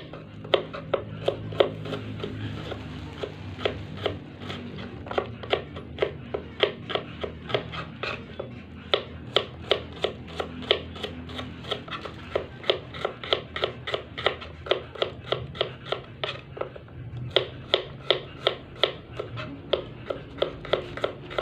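Knife slicing shallots on a wooden cutting board: a steady run of sharp taps, about two to three strokes a second, thinning briefly about two-thirds of the way through.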